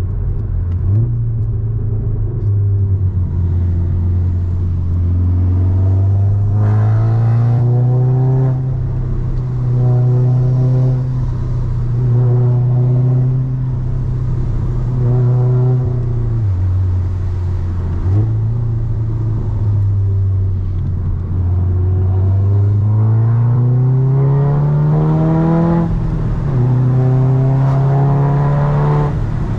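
Manual VW Golf 7R's turbocharged four-cylinder engine driving on the road. It climbs in pitch as the car accelerates, holds a steady cruise, and drops sharply at gear changes, then pulls up again in a second climb near the end.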